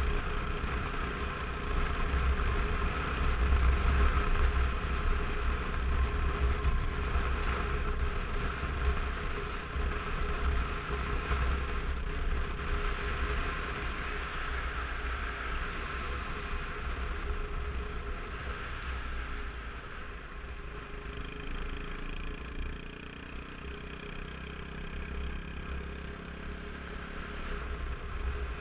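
Motorcycle engine running steadily while riding along a road, with wind rumbling on the microphone. The engine gets a little quieter after about twenty seconds.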